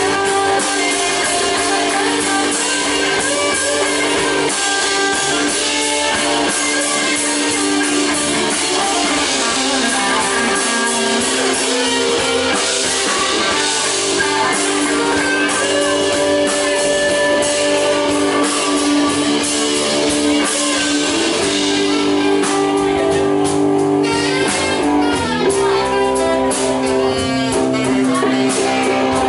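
Live band playing a slow blues: electric guitar over electric bass, drum kit and keyboard, with long held notes and chords and no clear singing.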